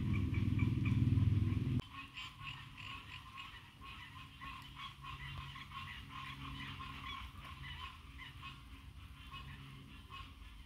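Frogs calling in a chorus of rapid, pulsing calls. A loud low rumble cuts off suddenly about two seconds in.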